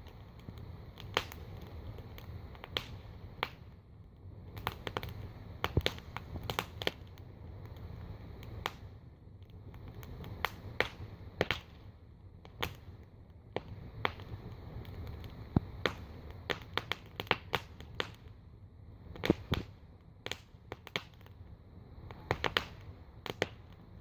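Wood campfire burning in a steel wheel rim, crackling with irregular sharp pops over a steady low rush.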